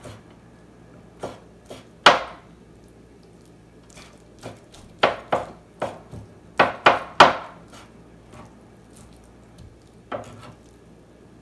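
Kitchen knife chopping on a wooden cutting board in irregular, separate strokes, mincing meat finely. There are a few strokes in the first two seconds, a quick cluster of about eight from about four to seven and a half seconds in, and a last stroke about ten seconds in.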